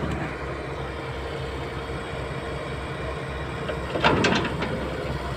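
Tata Hitachi 210 excavator's diesel engine running steadily, a low drone, with a short louder burst about four seconds in.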